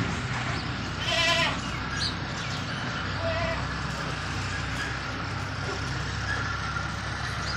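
Goats bleating: one loud, wavering bleat about a second in and a shorter one a few seconds later, over a steady low rumble.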